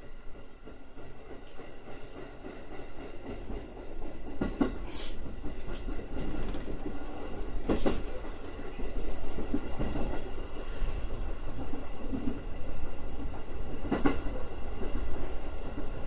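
Electric commuter train running on snow-covered track, heard from inside the train: a steady rumble that grows louder as it picks up speed, with a few sharp knocks every several seconds. The rider reports that the train is making an unusual noise.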